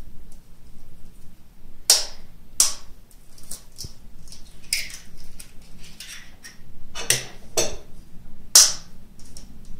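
Raw eggs being cracked open with a knife: a series of sharp taps and cracks of the blade against the eggshell, the loudest about two seconds in and near the end.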